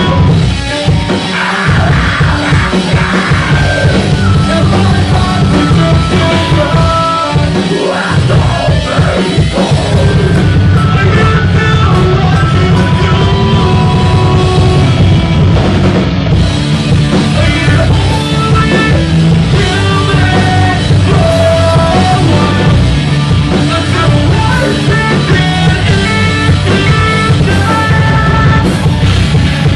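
Live rock band playing loud, with a singer on the microphone and keyboard lines over the band.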